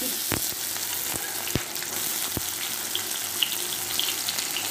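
Chopped onions sizzling in hot oil in an iron kadai with whole garam masala and bay leaf, freshly added and starting to fry. A few sharp clicks in the first two and a half seconds, then small crackles over the steady sizzle.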